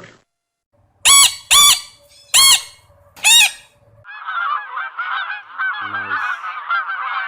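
Four loud, separate bird calls, each a short rise and fall, followed from about four seconds in by a flock of birds calling over one another without pause.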